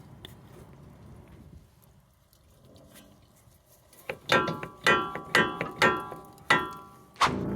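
Metal struck hard about seven times in quick succession, each blow ringing like a struck metal part, during a brake teardown.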